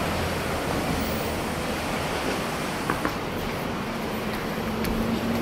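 Steady rush of road traffic passing below, with two faint ticks about three seconds in.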